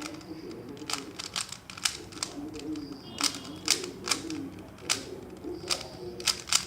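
Plastic layers of a Rubik's Cube being twisted by hand during a solve, giving sharp clacks in quick irregular clusters of two to four.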